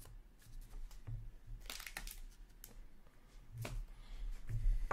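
Hands handling trading cards and packaging on a tabletop: a brief crinkling rustle about two seconds in and a couple of sharp light knocks later, over a low steady hum.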